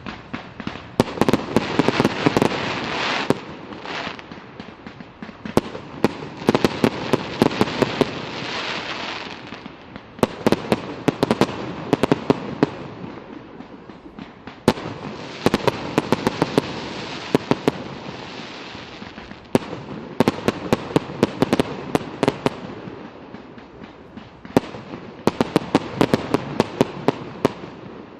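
Fireworks display: rapid volleys of sharp aerial shell bangs in clusters a few seconds apart, over continuous crackling and rumbling.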